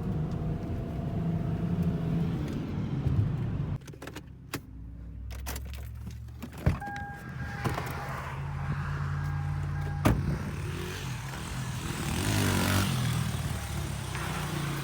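A motor vehicle's engine running steadily, with two sharp knocks about three seconds apart and a steady tone sounding between them.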